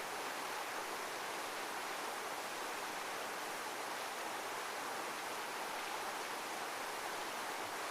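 Heavy waterfall: a steady, even rush of falling water with no rise and fall.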